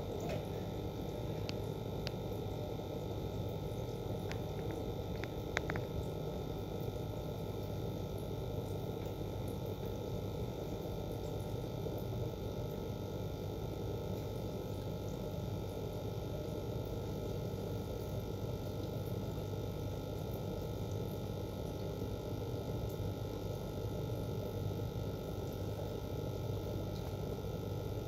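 Steady low hum and rushing noise of running aquarium equipment, with a few faint clicks in the first six seconds.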